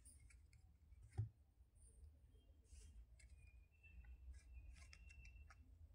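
Near silence with faint scattered clicks of hands handling small jewellery, one soft thump about a second in, and a faint thin high tone in the second half.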